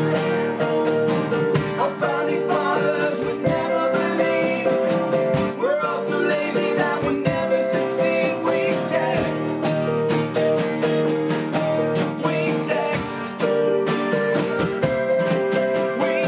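A rock band playing live: strummed guitars and sustained notes over a steady beat.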